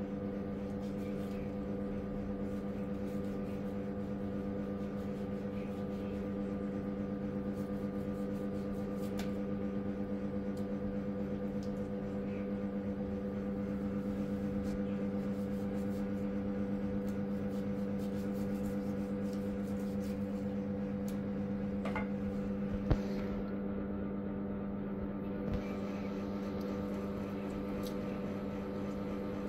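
Steady electric motor hum, like a running household appliance, holding one even pitch with several overtones. A sharp tap sounds about three-quarters of the way through, with a smaller one soon after.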